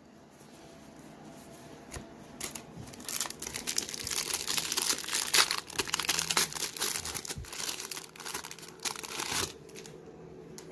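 Silver foil wrapper of a 1991-92 Pro Set hockey card pack crinkling and tearing as it is pulled open by hand, starting about two seconds in and dying away shortly before the end.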